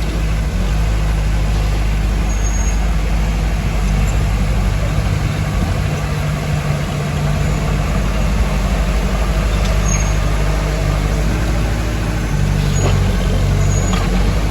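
Heavy diesel engine of earthmoving machinery running steadily with a low hum, with a few brief high squeaks.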